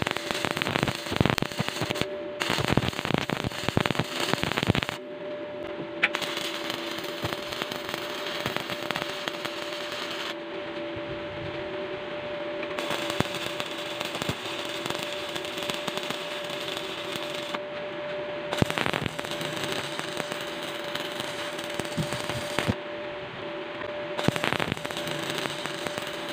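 Stick (shielded metal arc) welding on steel hinges and tubular steel: the arc sizzles and crackles continuously, with sharp pops and a few quick breaks in the first few seconds, then longer runs cut by several short pauses where the arc is broken and restruck. A steady hum sounds underneath.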